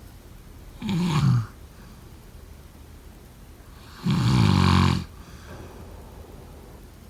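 Snoring during sleep: two loud snores about three seconds apart. The first is short and falls in pitch; the second lasts about a second at a steady low pitch.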